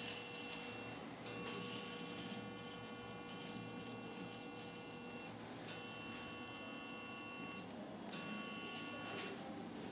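Electrosurgical unit's steady activation tone as the electrocautery pencil cuts tissue, sounding in four stretches of one to four seconds with short breaks between. A faint hiss comes with it about a second and a half in.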